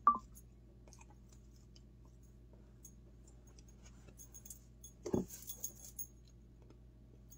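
Quiet handling sounds: faint clicks and crackles of crisp bacon strips being laid onto a sandwich by hand. They are loudest in a short cluster about five seconds in, after a brief sharp sound at the very start.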